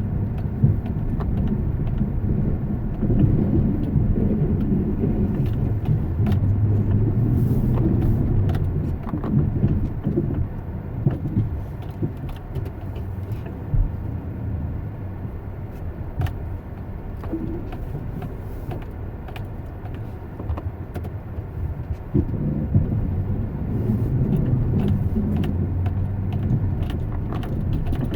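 A motor vehicle running, a steady low engine drone that is louder in the first third, eases off in the middle and builds again near the end, with scattered light clicks.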